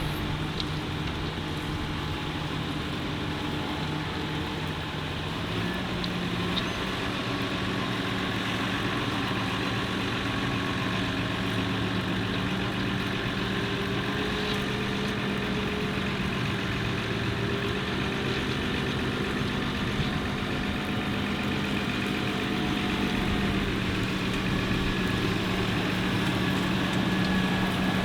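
Tractor engine running steadily at a low idle, its pitch stepping up slightly about five seconds in.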